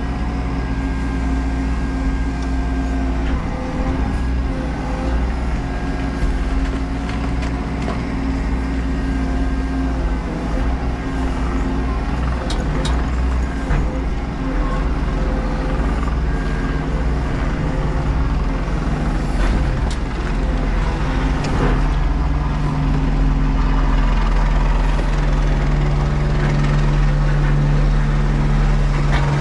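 Menzi Muck M335 spider excavator's engine and hydraulics running steadily, heard from inside the cab, the tone shifting as the boom and arm move, with a few sharp knocks. The engine note grows stronger near the end.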